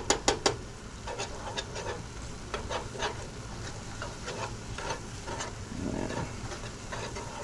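A small wire whisk scraping and clicking against a cast iron skillet as flour is stirred into butter and mushrooms to cook a roux, with a faint sizzle from the pan. It opens with a quick run of clicks, about six a second, then slows into irregular scrapes.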